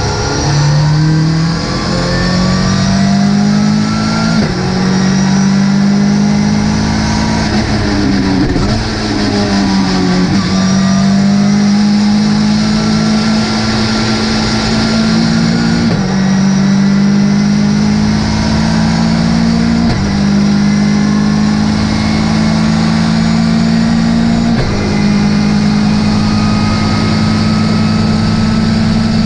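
Ginetta G40 race car's four-cylinder engine running hard under acceleration. The pitch climbs slowly and drops sharply at gear shifts every few seconds. A third of the way through it falls away as the car slows and changes down.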